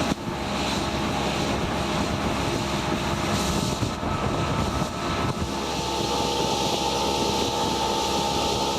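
Motorboat engine running steadily under way, with wind and water noise.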